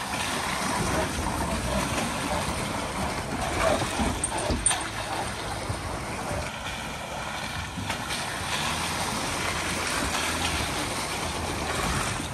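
Off-road vehicles, a Jeep among them, towing small camper trailers drive slowly past through muddy puddles on a gravel trail: engines running at low speed, with tyres splashing and sloshing through the water.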